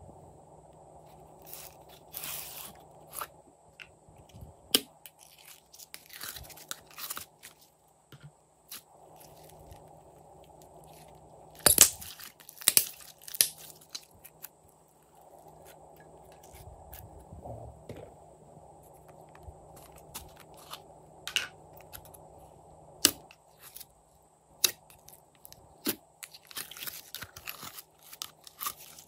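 Glossy slime being squeezed out of plastic bottles and kneaded by hand: sticky clicks, pops and squelches, with the loudest cluster of pops about twelve seconds in, over a faint steady hum.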